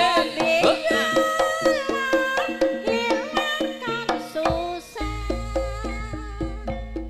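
Live jaranan ensemble music: steady hand-drum strokes under a gliding melodic lead. About five seconds in, a steady low drone joins.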